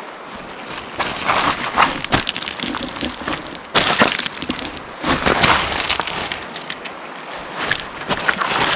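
Footsteps crunching on a riverbank of loose rounded stones and gravel, the stones grinding and clattering underfoot in irregular bursts.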